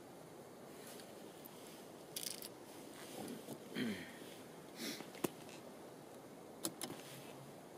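A person sniffing a few times in short bursts in the cold, with a couple of sharp small clicks.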